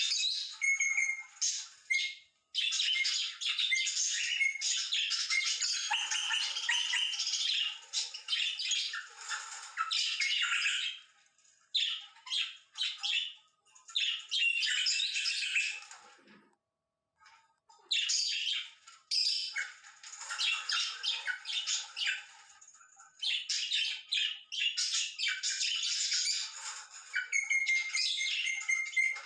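Parrot calling: long runs of rapid, high-pitched chattering calls with short pauses, a clear gap about two-thirds of the way through, and a few short held whistled notes near the start and the end.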